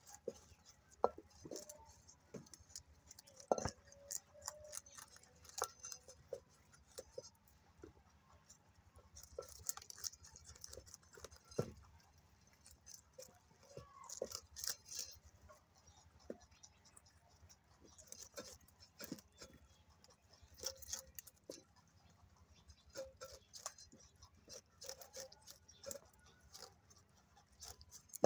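Several domestic rabbits gnawing and crunching raw carrots, a scattered run of small crunching clicks.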